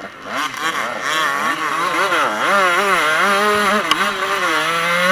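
KTM motocross bike's engine revving hard under racing throttle, its pitch swooping up and down again and again as the rider works the throttle and gears. It is quieter for the first half-second, then picks up.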